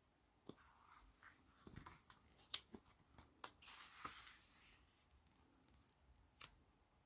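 A stiff page of a hardcover picture book being turned by hand: quiet clicks and ticks of fingers on paper, then a paper rustle as the page swings over about four seconds in, and one sharp tick near the end.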